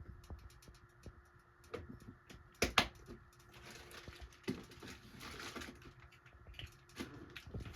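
Scattered light clicks and taps with a stretch of rustling about four to six seconds in, like small parts and tools being handled.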